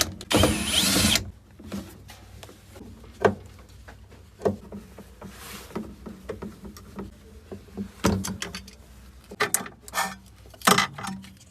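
A power screwdriver whirs for about a second at the start. Scattered clicks and knocks of hard parts being handled follow as a washing machine's drain valve is taken off.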